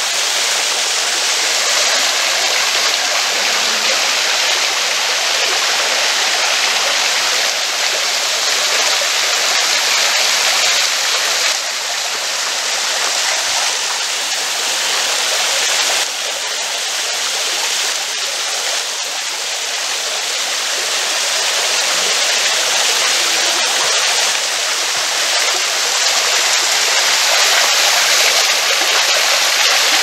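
Small waterfall splashing over a rock ledge into a creek pool: a steady rush of falling water, dropping slightly in level about 11 and 16 seconds in.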